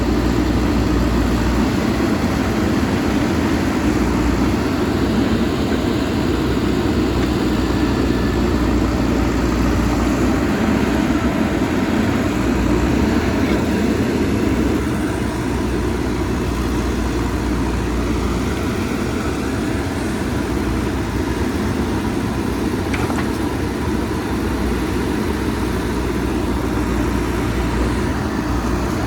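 JCB backhoe loader's diesel engine running steadily under work, a little quieter from about halfway through.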